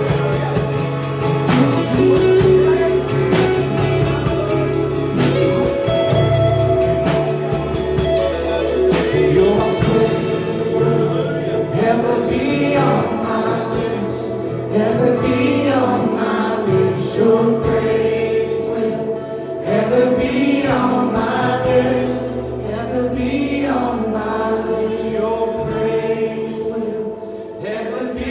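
A church worship band with singers performing a gospel song. Drums and full band play for about the first ten seconds, then the drums drop out and the voices carry on over sustained chords.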